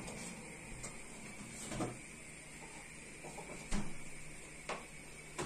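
Quiet, dry rustling of shredded kadayıf pastry as hands pull the strands apart and spread them in a glass dish, with a few soft ticks.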